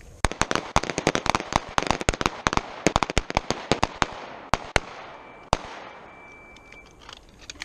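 A line of pistols firing together, several shooters each putting two rounds to the chest and one to the head: dozens of rapid, overlapping shots for about five seconds, thinning out to a few last single shots.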